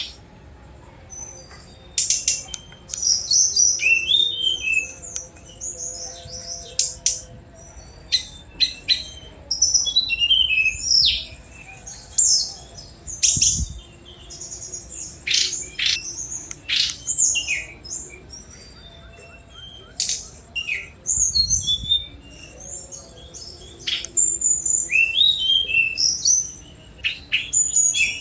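A tledekan gunung, a small forest flycatcher, singing fast bursts of high, sweeping chirps and trills, with short pauses between phrases.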